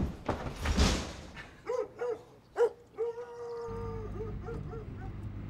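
A dog whimpering and yelping: a few short high whines, then one longer drawn-out whine, then several quick yips. About halfway through, a car's engine starts a steady low rumble, heard from inside the cabin.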